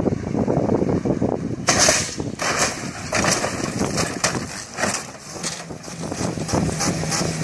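A stunt car crashing off the road into a dry field: a burst of harsh, rough noise with repeated knocks starts about two seconds in, over wind buffeting the microphone.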